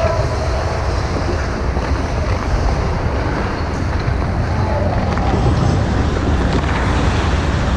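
Steady loud rumbling noise of an indoor ice rink during play, with no distinct knocks or voices standing out.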